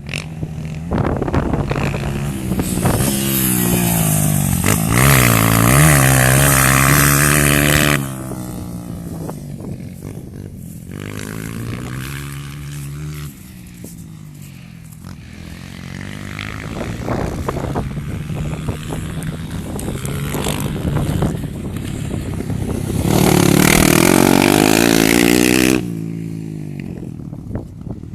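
Single-cylinder four-stroke trail motorcycle engine revving up and down as it rides. There are two loud full-throttle pulls, one from about three to eight seconds in and one near the end, each cutting off sharply as the throttle closes.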